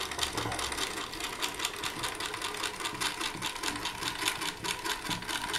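Clockwork motor of a vintage toy boat running, a rapid, even clicking whirr that keeps a steady pace.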